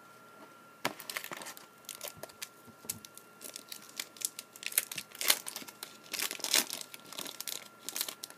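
Foil trading-card pack wrapper crinkling as it is torn open: a quick run of irregular crackles starting about a second in.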